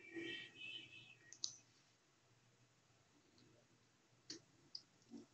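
Near silence: room tone with a few faint, isolated clicks.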